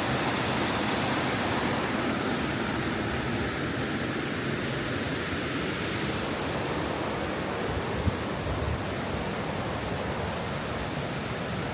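Steady rush of high water pouring over rocky river shoals, with most of the rock under water. One brief knock about eight seconds in.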